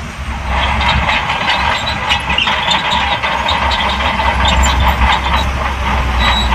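SHANTUI bulldozer working: its diesel engine runs with a steady low drone while the steel crawler tracks clank continuously.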